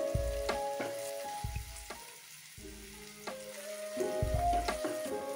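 Chicken pieces sizzling in butter and oil in a frying pan, with a fork clicking a few times against a ceramic bowl as the pieces are lifted out. Soft background music with held notes and a slow low beat plays over it.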